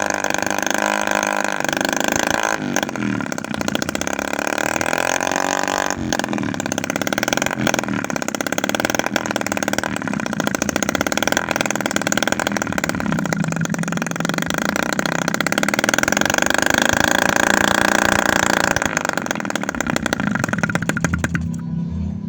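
Homemade 7cc two-stroke engine, built from a used refrigerator compressor with a 25 mm piston and 16 mm stroke, running with its revs rising and falling several times.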